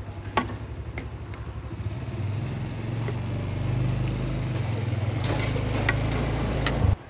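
A small engine running with a low, evenly pulsing rumble that grows louder about two seconds in and cuts off abruptly near the end. A few light knocks and clatters sound over it.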